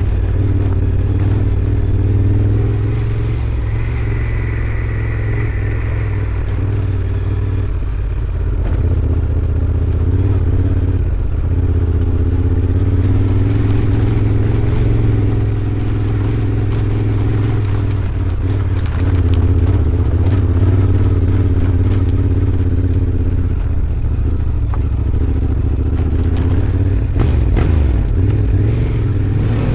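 Honda Africa Twin 1100's parallel-twin engine running at low, fairly steady revs while riding, with small rises and falls in engine speed.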